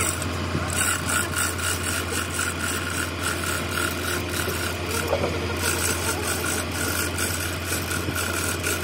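Repeated metallic scraping and clicking as the heavy sprocket hub of a Komatsu bulldozer final drive is worked onto its housing, over a steady low hum.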